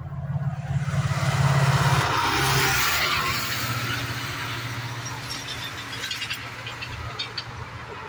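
A WDP-4D diesel-electric locomotive (EMD two-stroke V16) passes at speed. Its low engine throb peaks a second or two in and drops in pitch as it goes by, with a rush of air. Then the passenger coaches roll past, their wheels clicking over rail joints.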